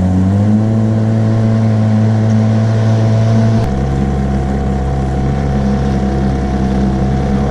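Boat's outboard motor running steadily as the jon boat moves across the water, its tone shifting once about three and a half seconds in.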